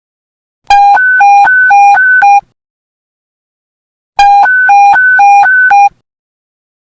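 Police radio panic-button emergency alert tone: a loud electronic two-tone warble that switches quickly back and forth between a lower and a higher beep, sounded in two bursts of under two seconds each with a pause between.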